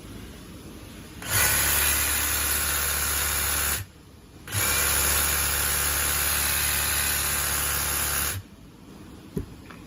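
Makita MUH500D cordless hedge trimmer running at speed with its blades reciprocating, switched on and off twice, about 2.5 and 4 seconds long, with a brief pause between. A single sharp click near the end.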